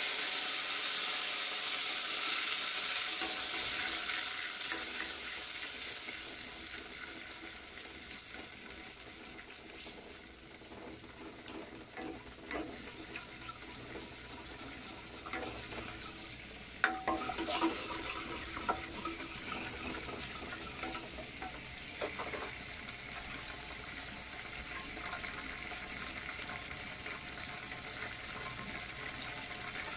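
Sauce ingredients sizzling in a hot stainless steel pan, loudest at the start and dying down over the first several seconds, while a spatula stirs and scrapes against the pan, with a cluster of sharper scrapes about two-thirds of the way through.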